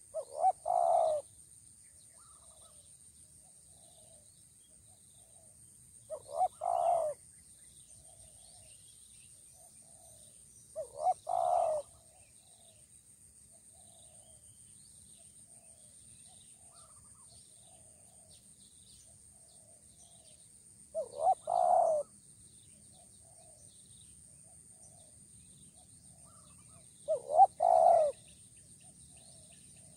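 Spotted dove cooing: five calls about five seconds apart, each two short notes followed by a longer one.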